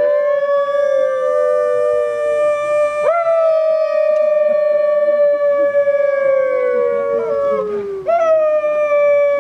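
Two people imitating wolves in a group howl, two long overlapping howls. One voice holds a near-steady note and starts fresh howls with a rising scoop about three and eight seconds in, while the other slides down in pitch.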